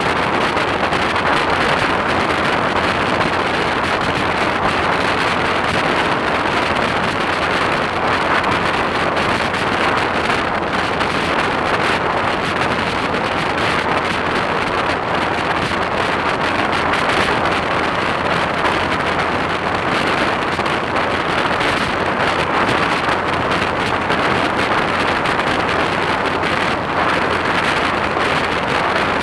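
Steady wind rush over a motorcycle-mounted camera's microphone at road speed, mixed with the motorcycle's engine and road noise.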